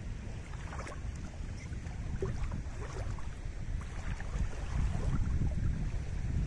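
Wind buffeting the microphone in a low, steady rumble, with small waves lapping and splashing against a rock at the water's edge. The wind grows a little stronger about four seconds in.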